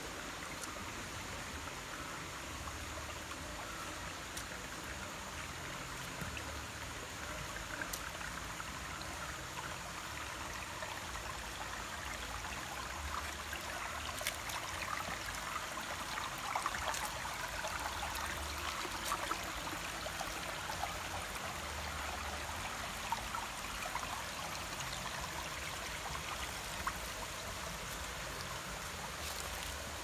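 Shallow rocky forest stream running and trickling between rocks, a steady rush of water that grows a little louder in the middle, with a few small splashy ticks.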